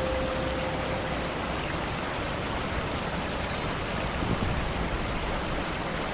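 Steady rain falling on a lake, an even hiss of many drops on the water. A held note of background music fades out about a second in.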